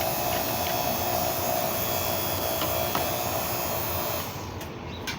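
Refrigeration vacuum pump running steadily as it evacuates the refrigerant lines, then switched off about four seconds in.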